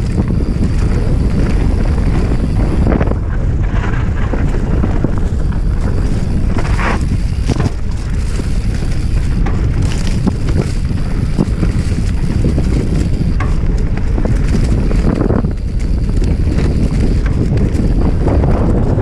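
Heavy wind buffeting on the microphone, a steady low rumble, with a few brief sharp knocks and rattles scattered through it.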